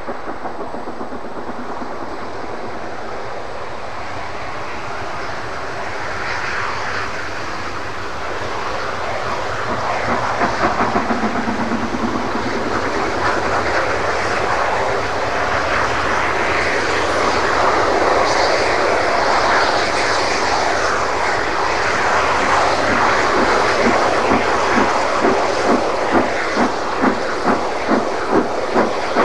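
LMS Princess Royal class Pacific steam locomotive 6201 Princess Elizabeth approaching at speed, its exhaust and running noise a steady roar that grows louder as it nears. In the last few seconds a quick, regular beat of about two a second comes through as it draws close.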